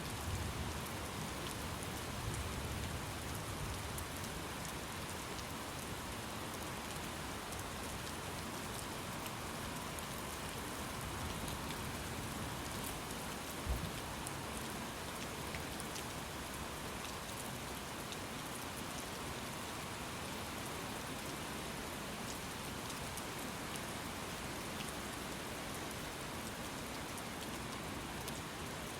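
Steady rain falling, an even hiss with a faint low rumble in the first few seconds. A single sharp tap sounds about fourteen seconds in.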